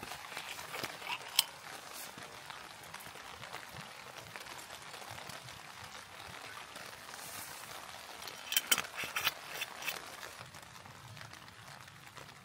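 Light metallic clicks and taps as a thin metal cup is set into an aluminium plate, then sake poured from a glass bottle into the cup. A cluster of sharper clinks comes about two-thirds of the way through.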